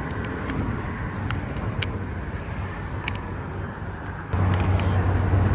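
Road traffic noise from vehicles passing on the bridge, with a few short sharp clicks in the first three seconds. About four seconds in, a louder steady low engine hum comes in abruptly.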